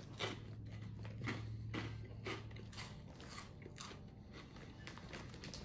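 Someone chewing a mouthful of Smartfood popcorn and Cap'n Crunch's Crunch Berries cereal pieces, with short crisp crunches coming irregularly, roughly twice a second.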